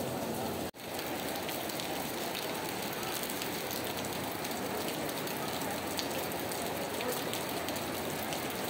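Heavy rain falling steadily, a constant hiss of rain on wet ground, broken by an instant's dropout under a second in.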